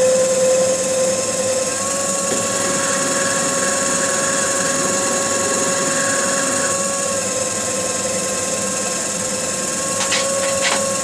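Cue lathe running steadily with a motor whine that steps up slightly in pitch about two seconds in and drops back near seven seconds, as a paper towel and a small iron are pressed against the spinning linen-wrapped cue butt to burnish the wrap. A few light clicks come near the end.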